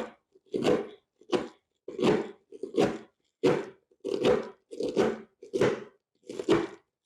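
Knife cutting water leaf, about ten even, sharp chopping strokes, roughly one and a half a second.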